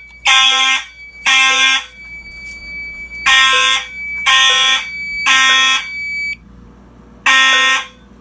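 Fire alarm horns sounding in the temporal-three evacuation pattern: loud half-second blasts in groups of three, with a pause of about a second and a half between groups. A thin steady high tone runs underneath and stops about six seconds in.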